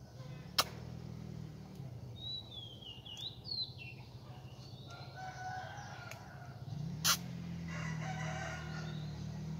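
Rooster crowing, with a small bird chirping about two to four seconds in, over a steady low hum. Two sharp clicks, one near the start and one about seven seconds in.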